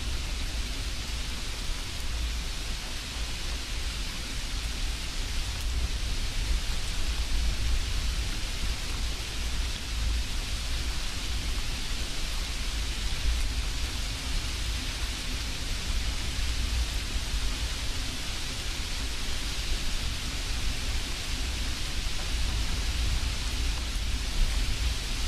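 Steady hiss over a low rumble, even and unbroken throughout.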